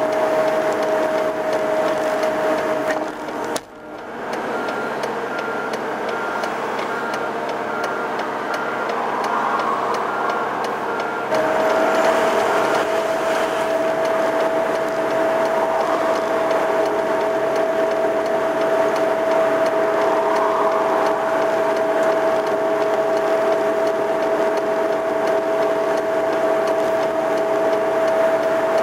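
Road-cleaning vehicles running steadily, with a constant high whine over the engine. The sound dips out briefly around four seconds in and comes back louder at about eleven seconds.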